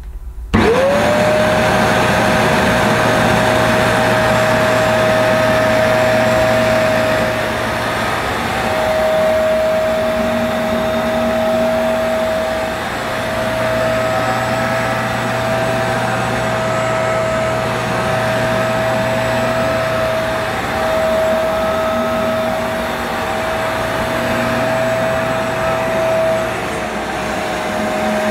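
Bissell PowerClean compact upright carpet washer switched on about half a second in, its motor spinning up quickly to a steady high whine over a rushing suction noise. It runs on as it is pushed back and forth over the carpet, the level dipping a little now and then.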